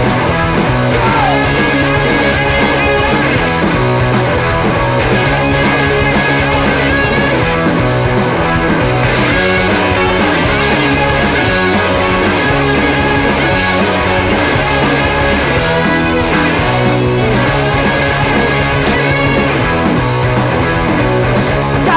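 Rock band recording with electric guitar playing at a steady level, a stretch with no singing.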